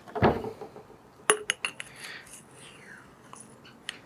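Small metal parts and tools handled on a workbench: a dull knock at the start, then a quick run of light metallic clinks about a second in and one more near the end.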